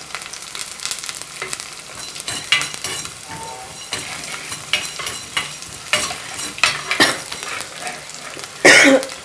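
Spatula stirring fennel seeds and peppercorns as they dry-roast in a pan, with irregular clicks and scrapes over a light frying hiss. A louder scrape comes near the end.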